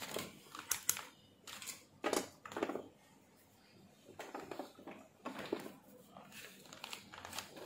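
Faint handling noises: a few short clicks and scrapes, spaced irregularly with quiet between them, as multimeter test probes are handled and brought to a circuit board.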